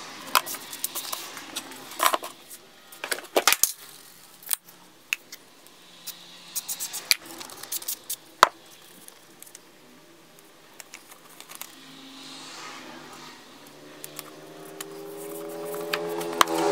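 Scissors snipping through a paper template, with sharp clicks, paper rustles and a few knocks on the workbench. Near the end an electric bandsaw motor starts up, its hum rising in pitch and growing louder.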